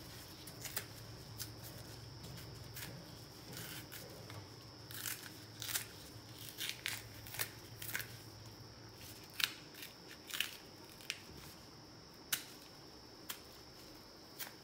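Raw green plantain peel being pulled off by gloved hands: faint, irregular crisp snaps and crackles as the thick skin tears away from the fruit.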